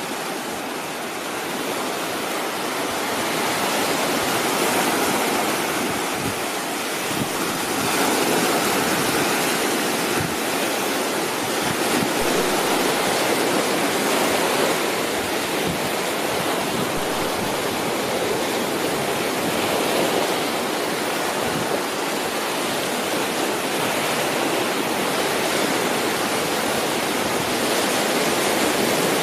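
Small surf breaking and washing up on a sandy beach: a steady rushing that swells and eases slowly.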